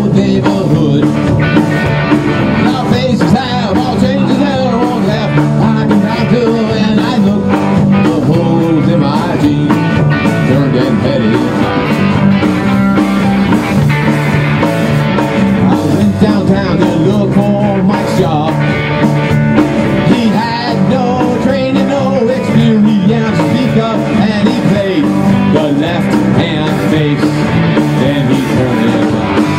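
Rock band playing live: drum kit, electric bass and electric guitar in a steady, loud rock-and-roll number.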